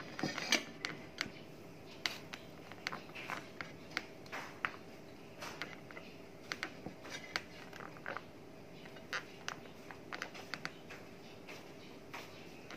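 Serving tongs tapping and scraping against a plate and a metal tray as spaghetti is dished out: a scattering of light, irregular clicks over a faint steady hum.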